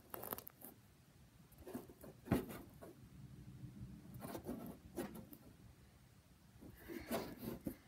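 A phone being handled and repositioned: rubbing and a few scattered knocks close to the microphone, the loudest about two seconds in and a small cluster near the end.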